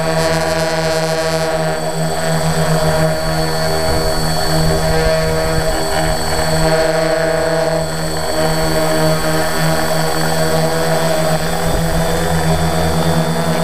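Small multirotor drone's propellers buzzing steadily in flight: a loud, even hum held on several steady pitches.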